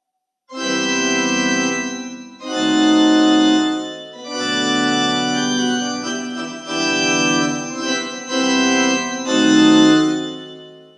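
Casio CDP-S150 digital piano playing a series of about six held chords on one of its built-in organ tones, each chord sustained a second or two with short breaks between.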